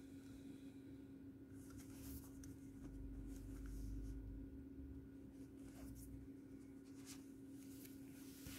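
Faint rustling and scraping of a cardboard CD digipak being handled, turned over and opened, in several short bursts, over a steady low hum.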